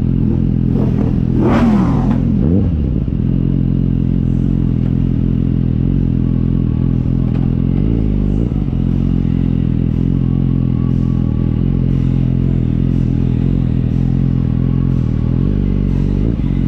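Motorcycle engine running at a steady pitch. About a second in, a second engine note rises and falls over a second or so, and about eight seconds in the pitch dips briefly and recovers.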